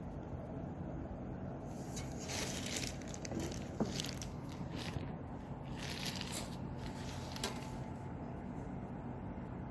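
Crinkling, rustling handling noises in several short spells, with a sharp click about four seconds in, over a steady low hum.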